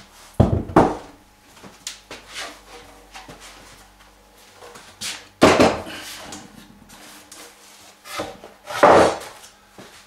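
A thick wooden board being set down and shifted on a wooden workbench: a few separate wood-on-wood knocks, the loudest about half a second in, at about five and a half seconds and near the end, with lighter scuffs in between.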